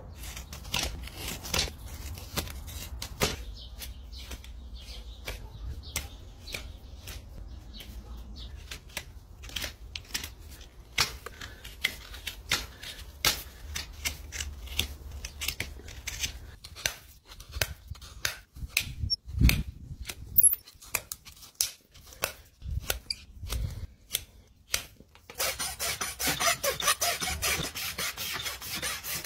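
Farrier's hoof work on a horse's hoof: a long run of scattered sharp clicks and snips from tools on the hoof, with a few dull knocks. About 25 seconds in, a steady rasping starts as a farrier's rasp files the hoof.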